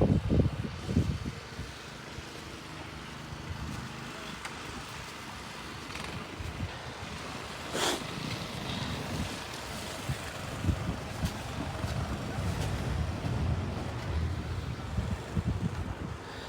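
A vehicle engine running steadily in the snow, a low rumble with wind noise on the microphone. There is one sharp click about eight seconds in.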